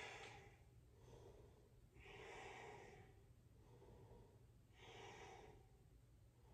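A woman's slow breathing: two soft breaths, about two seconds and five seconds in, over near silence.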